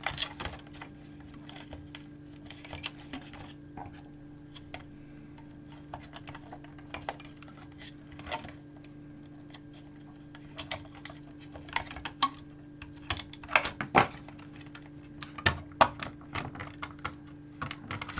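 Irregular clicks and taps of small hard parts and wiring being handled and fitted by hand, with a cluster of louder knocks in the second half, over a steady low hum.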